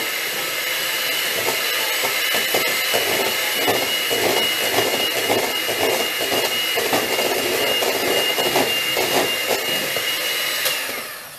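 Electric hand mixer running at its lowest speed, its beaters whisking wet cake batter in a steel bowl: a steady motor whine with a rhythmic swish of the beaters through the batter. The motor switches off near the end.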